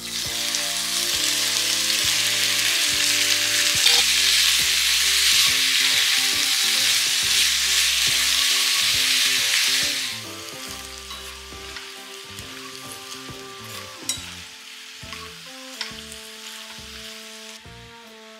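Squid hitting hot sesame oil in a cast-iron skillet sizzles loudly for about ten seconds, then settles to a quieter sizzle as it cooks, with a few light clinks of chopsticks stirring it. Soft background music runs underneath.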